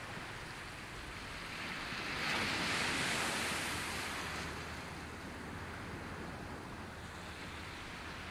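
Ocean surf on a beach: a steady hiss of the sea, with a wave breaking about two seconds in that swells and then washes out over the next two seconds.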